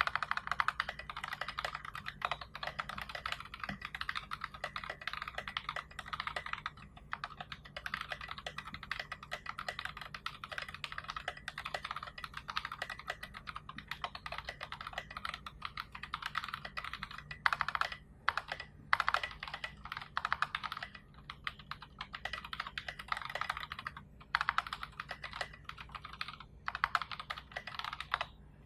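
Continuous fast typing on a mechanical keyboard with tactile Box Royal switches, SA keycaps and a 3 mm acrylic plate, a dense stream of key clacks with brief pauses between bursts.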